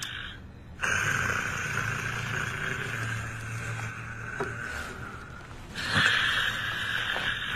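A person snoring: one long snore lasting about five seconds with a low buzz in it, then a second snore starting about six seconds in.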